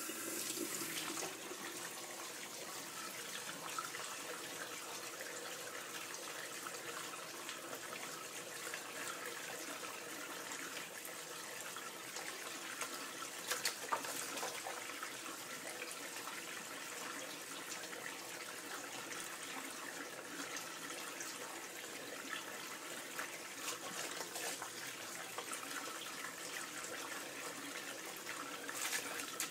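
Kitchen mixer tap running a thin stream of water into a stainless steel sink: a steady splashing, briefly louder about halfway through.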